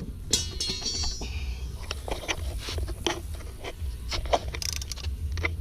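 Hand tools working on car parts: a ratchet wrench clicking, with irregular metal clicks, knocks and scrapes. A quick run of rapid clicks comes in the first second.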